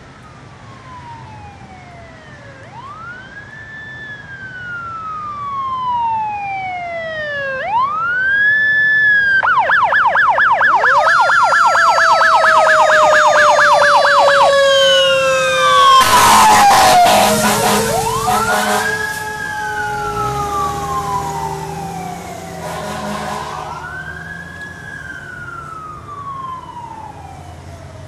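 Fire engine siren on a slow wail, rising and falling, switching to a fast yelp about ten seconds in as the truck draws level, with a second siren sliding slowly down in pitch underneath. Loud horn blasts come about sixteen seconds in, then the wail resumes and fades as the truck drives away.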